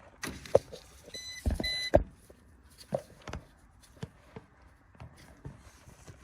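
Two short electronic beeps about half a second apart, a little over a second in, among clicks and knocks of parts being handled.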